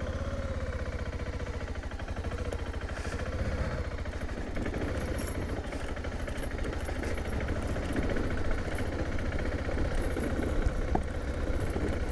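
BMW G650GS motorcycle's single-cylinder engine running at low speed with an even, rapid beat as the bike is ridden slowly over a rough grass track, with a few light clicks and rattles.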